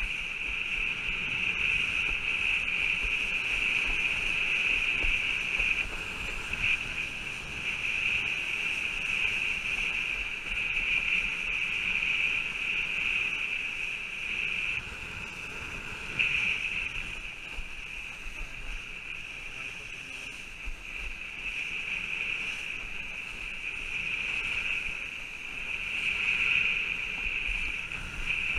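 Kiteboard riding across choppy water: a steady rush of water and wind with a strong high-pitched hiss, swelling and easing in loudness.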